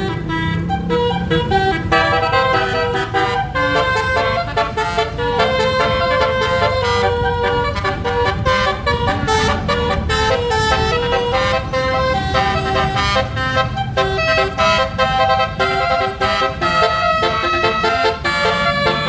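A bus's telolet horn, a set of electrically switched air-horn trumpets, playing a continuous tune of quickly changing notes over a low rumble.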